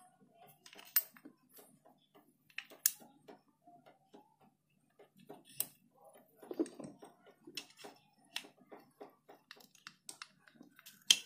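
Scattered light metallic clicks and taps of small steel parts being handled, with a few sharper clicks among them, as rocker arms and rocker shafts are slid by hand into a Suzuki Hayate motorcycle cylinder head.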